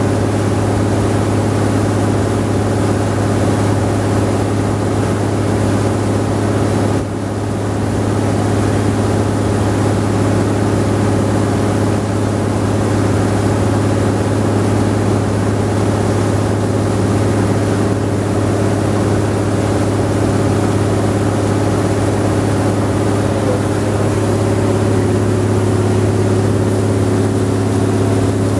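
Engine of a wooden river tour boat running steadily at constant speed while under way, a loud, even engine note with a brief slight dip about seven seconds in.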